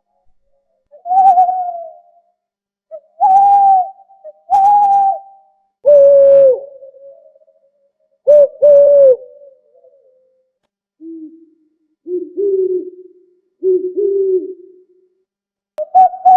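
Owl hooting: a series of single hoots and one quick pair, each about half a second long and dipping in pitch at the end. The later hoots are noticeably lower-pitched.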